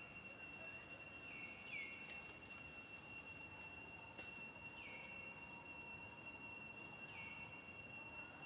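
Faint outdoor ambience: a steady, high-pitched insect drone, with a short falling chirp heard four times.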